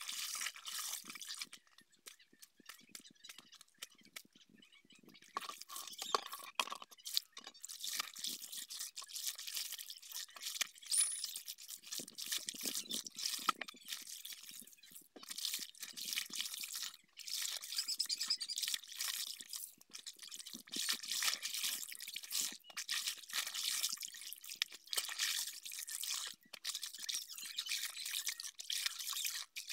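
Clothes being hand-washed in a plastic basin of soapy water: irregular sloshing and swishing as the fabric is worked, with water splashing and dripping into a bucket as pieces are wrung out.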